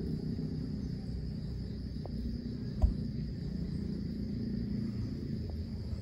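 Steady, high-pitched insect drone over a low rumble, with a single sharp thump about three seconds in.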